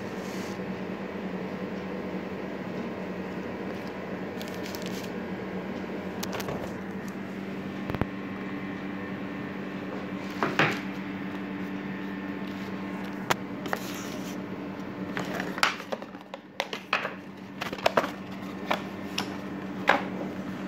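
Cardboard phone box and plastic wrap being handled: scattered clicks, taps and crinkling rustles, more frequent in the last few seconds, over a steady low hum.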